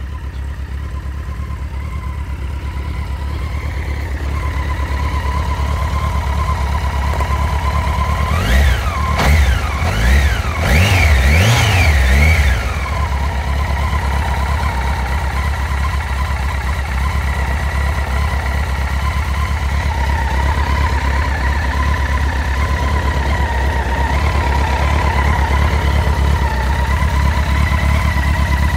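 Honda CBR1100XX Blackbird's inline-four engine idling with a steady high whine running through it, the unexplained noise from the left side of the engine. About eight seconds in comes a quick run of throttle blips lasting some four seconds, then the idle settles back.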